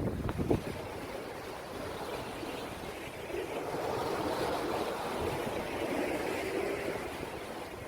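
Sea waves washing against the shore, with wind buffeting the microphone. A wave surge swells about three seconds in and eases off near the end.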